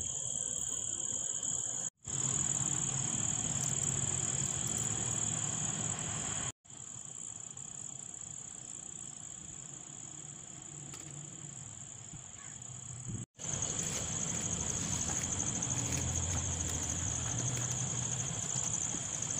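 Crickets chirring in a steady high-pitched chorus, with three brief dropouts, and a faint low rustle of handling underneath.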